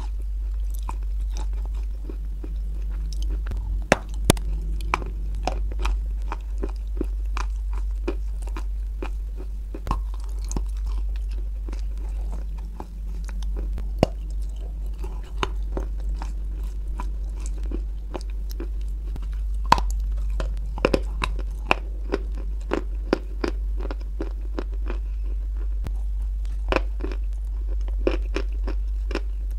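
Close-miked biting and chewing of a block of white chalk coated in brown clay: many sharp, irregular crunches, thicker in the second half, over a steady low hum.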